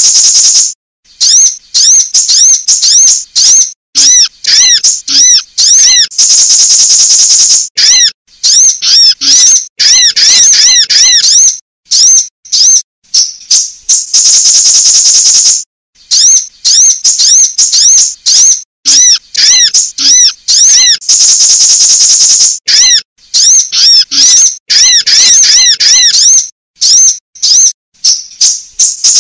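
Sunbird calls on a looped lure recording: rapid series of high, arching chirps alternating with bursts of a sustained high trill, the pattern repeating about every seven seconds with abrupt cut-offs between phrases.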